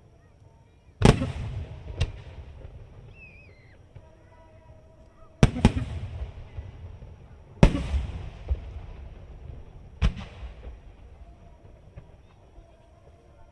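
Aerial firework shells bursting: four loud booms a few seconds apart, each trailing off in a rumble, with a couple of smaller reports between them.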